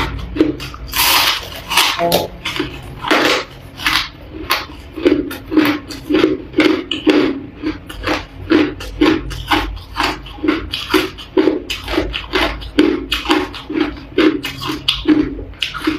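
Crushed ice being chewed: steady crunching at about two to three crunches a second, with a sharper bite into a chunk about a second in.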